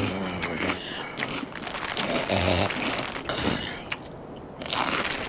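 Sleeping bear crunching and chewing pretzels, with a couple of low snores between the mouthfuls.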